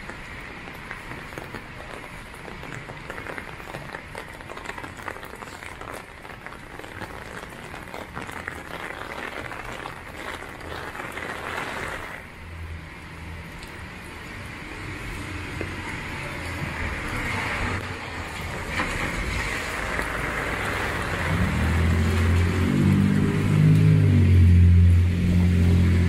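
Heavy rain falling steadily on a city street, with traffic hissing past on the wet road. About three quarters of the way through, a vehicle's engine grows loud as it passes close by.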